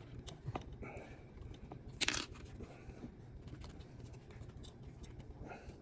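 Small clicks and rustles of electrical wires and plastic wire nuts being handled and twisted together, with one brief louder crunching scrape about two seconds in.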